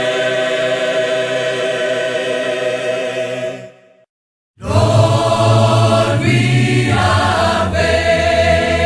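A choir holds a final sung chord that fades out to a short silence about four seconds in. A new piece then starts: choir voices over a strong low bass accompaniment.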